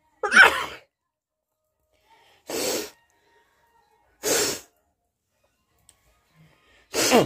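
A person sneezing four times, each sneeze short and sharp, with about two seconds between them.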